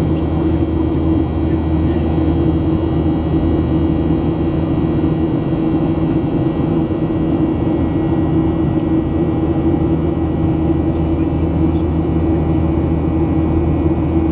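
Cabin noise of a Boeing 737-800 climbing after take-off: the steady drone of its CFM56 turbofan engines and the rushing air, with a low hum and several thin, steady high whining tones over it.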